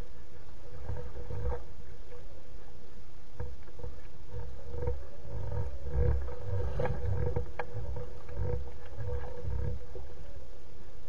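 Wind buffeting the nest camera's microphone in uneven low rumbles, over a faint steady hum, with a few light ticks about two-thirds of the way through.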